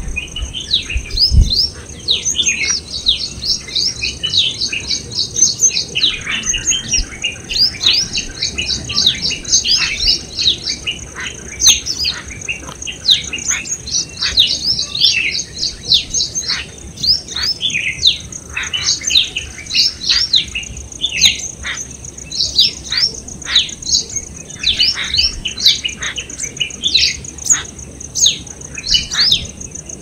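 Small songbirds chirping and twittering busily: a dense run of rapid high notes and quick downward-sweeping calls, over a steady high-pitched insect drone. A single low thump about a second and a half in.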